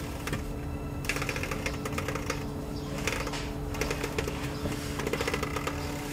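Ratchet wrench clicking in short quick runs as it is swung back and forth, tightening the oil filter housing cap through a 24 mm socket on an extension until the new seal seats.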